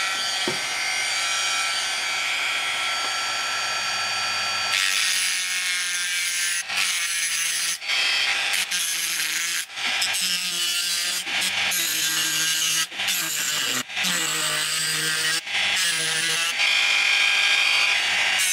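Handheld rotary tool with an abrasive cut-off disc running at a steady whine. About five seconds in it starts cutting into the pacemaker's metal case, the grinding broken by brief gaps every second or two as the disc is eased off and put back.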